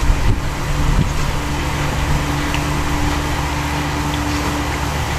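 A steady machine hum with a low, even drone throughout, and a couple of faint knocks in the first second.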